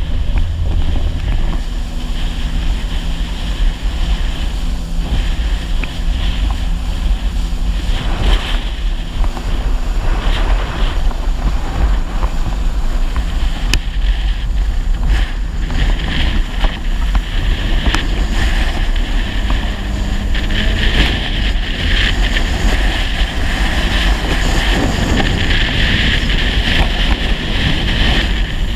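Personal watercraft running at speed: a steady engine drone under heavy wind buffeting on the microphone and rushing water from the hull and spray.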